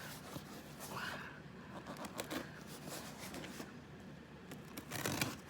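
Quiet rustling and small knocks of a cardboard package being handled, with a brief louder rustle about five seconds in.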